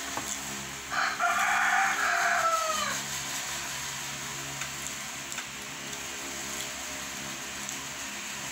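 A rooster crows once, about a second in, a call of about two seconds that falls in pitch at the end.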